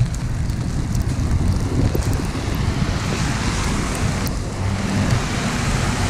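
Storm wind buffeting the microphone with a low rumble, under a steady rushing hiss that swells about three seconds in and again near the end.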